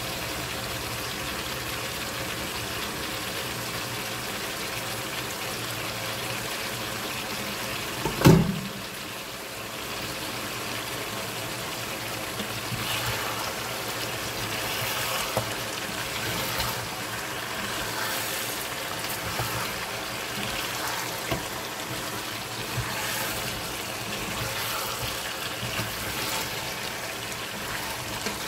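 Lamb pieces and freshly added blended ingredients sizzling steadily in a non-stick pot. A single loud knock comes about eight seconds in, and from about twelve seconds a wooden spoon stirs through the meat, adding soft, irregular scraping.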